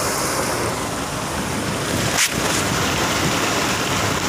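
Heavy rain pouring on a moving vehicle, heard from inside the cab as a steady rush mixed with the vehicle's road and engine noise. A single sharp knock sounds about halfway through.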